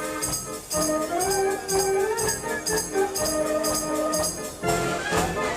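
105-key Decap fairground robot organ playing a tune: a melody over a steady beat of about four percussion strikes a second. The music breaks off abruptly about four and a half seconds in and a different passage begins.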